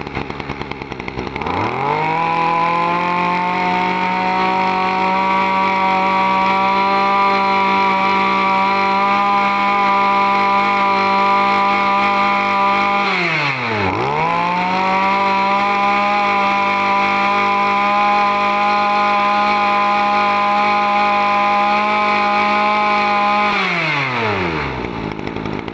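Small two-stroke engine of a used Ryobi 26cc brush cutter revved up to full throttle and held there. About halfway through, the throttle is released and the engine drops briefly toward idle before revving up again. Near the end it falls back toward idle as the throttle is let off.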